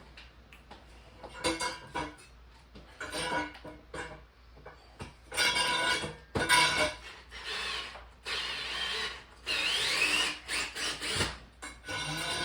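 Cordless drill driving a screw into a concrete block wall in a series of short bursts, its motor whine changing pitch as it slows under the load and speeds up again, one rising whine near the end. The wall is hard to screw into.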